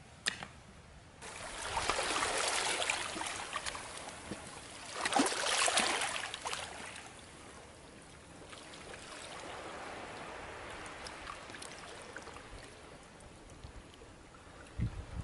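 Water splashing and trickling, loudest in two spells in the first half, then a softer, even wash. A short sharp click comes just before it starts.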